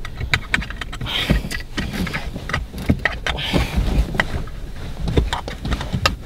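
Clothing rustling and scattered clicks and knocks as a passenger shifts about and fumbles in a car's back seat, with a few low thumps.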